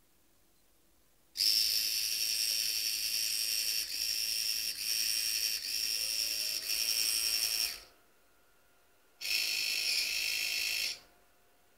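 Small electric motor switched on and off through a computer's parallel port. It runs with a high whine for about six seconds with a few brief dips, stops, and then runs again for about two seconds.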